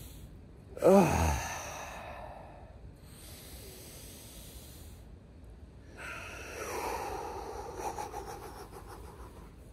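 Slow, deep breathwork breathing. About a second in there is a loud voiced sigh ('mm-hmm') falling in pitch and trailing into a breathy exhale. About six seconds in comes a longer exhale through pursed lips.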